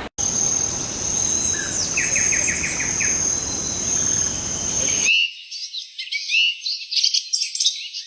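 Insects singing in a steady high drone, with a bird's short rapid trill of about eight notes around two seconds in. About five seconds in, the sound cuts to many small birds chirping together.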